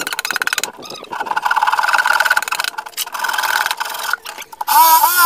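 Handsaw cutting plywood in a run of rasping strokes, each about half a second long. Near the end an electric jigsaw's motor starts with a rising whine and runs steadily.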